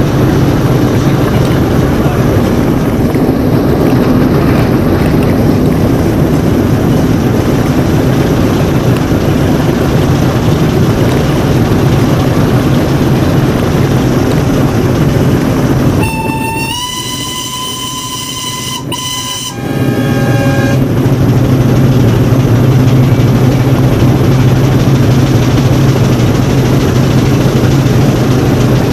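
Steady running and road noise with a low hum. About sixteen seconds in, a steam whistle sounds one held chord for about three and a half seconds, rising slightly in pitch as it starts and dying away briefly after it stops.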